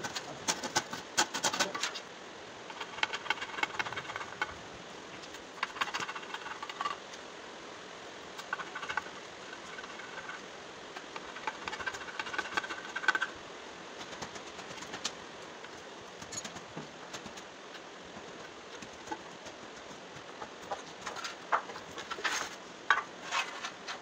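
A hand saw rasping through a pine batten in several short runs of strokes. Near the end come sharp wooden knocks as pieces of timber are set down on a concrete floor.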